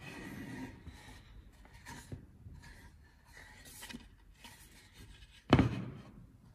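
Hand woodworking tools working pine: irregular scraping and rubbing with a few small knocks, and one heavier thump about five and a half seconds in.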